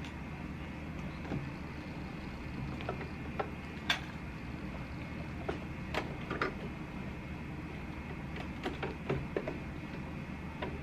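Cotton fabric being handled and lined up under a sewing machine's presser foot: soft rustling with scattered small clicks and taps over a steady background hiss.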